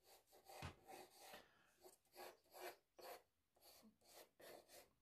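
Faint scratching of a pencil sketching quickly on paper: a string of short, irregular strokes.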